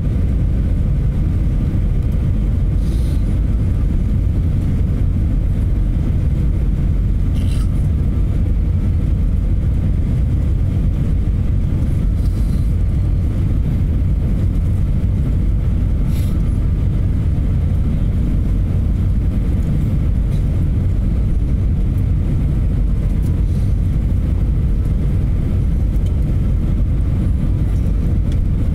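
Steady low rumble of engines and rushing air inside an Airbus A320 cabin on approach with the flaps extended, with a few faint clicks.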